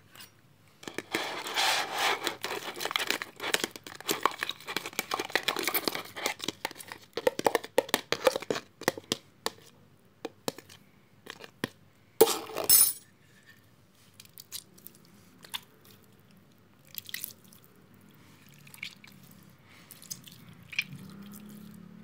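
Slime being squished and kneaded by hand: a dense run of sticky clicks and pops for the first several seconds, a louder burst about twelve seconds in, then only scattered clicks.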